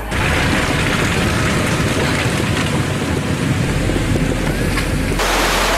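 Flash-flood torrent: a loud, steady rush of churning, debris-laden floodwater, changing in tone about five seconds in.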